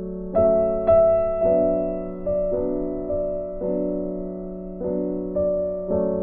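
Slow, gentle background piano music: notes struck about once or twice a second, each fading away over a held low note.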